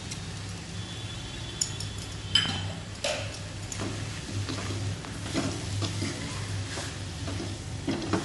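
Perforated steel spoon stirring and scraping chicken pieces around a steel kadai, with the masala and freshly added ginger-garlic paste sizzling on low flame. A sharper metallic clink comes a little over two seconds in.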